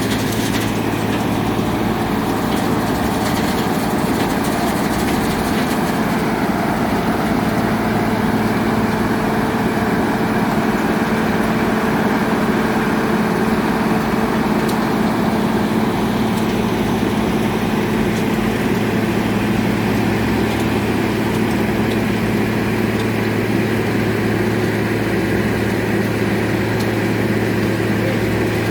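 Wirtgen W2000 cold milling machine's diesel engine running steadily, an even low drone.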